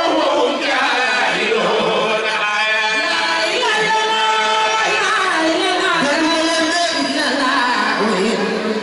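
Islamic religious chant sung by a lead voice into a microphone, in long held notes that glide from pitch to pitch.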